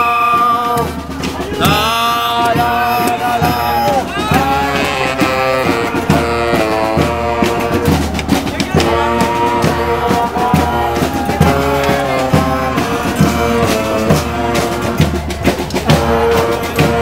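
Music with a drum beat: a melody of held notes stepping up and down, some of them sliding into pitch, over steady drum hits.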